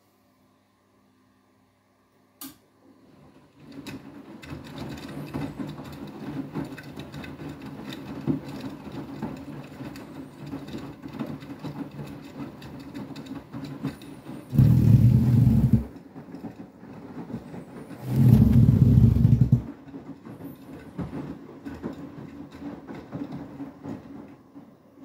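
Beko WTK104121W washing machine on its quick 60° main wash: after a pause and a single click, the drum motor starts turning the wet towel load with a steady low hum. There are two louder spells of about a second and a half each partway through, and the sound dies away near the end.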